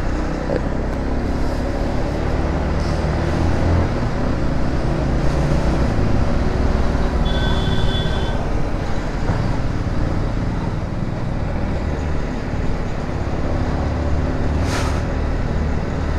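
Yamaha MT-15's single-cylinder engine running steadily under road and wind noise while the bike is ridden. A vehicle horn sounds briefly about seven seconds in.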